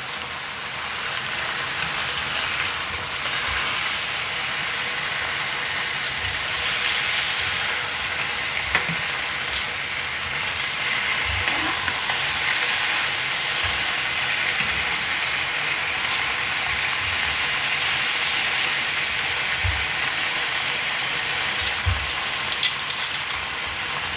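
Chicken breasts frying in olive oil in a skillet: a steady, even sizzle. A few light clicks come near the end.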